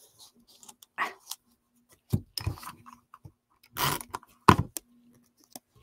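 Paper and cardstock pieces being handled on a work table: a few short rustles and light knocks, the loudest a sharp tap a little past the middle.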